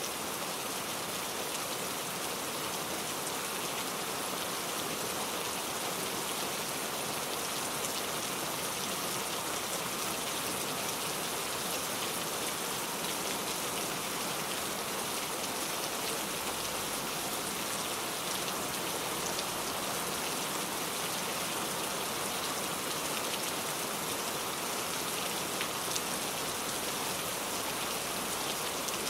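Heavy rain falling steadily, a continuous hiss with scattered patter of drops hitting a surface.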